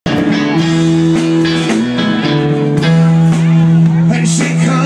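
Live band playing with guitar, music that starts at once and holds steady and loud.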